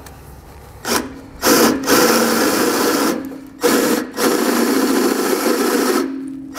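Cordless drill with a 3/8-inch bit enlarging a pilot hole in the air compressor's mounting bracket, run in short bursts: a brief blip about a second in, then two longer runs of about one and a half and two and a half seconds. The motor keeps a steady pitch under the noise of the bit cutting.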